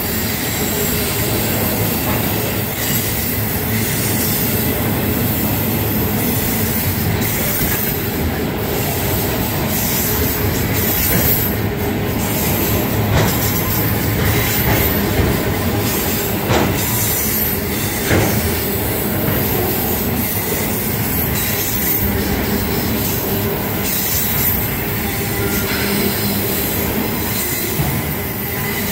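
Freight train of autorack cars rolling past at close range: steady loud rumble and rattle of steel wheels on rail, with a thin high squeal over it and a few sharp clanks around the middle.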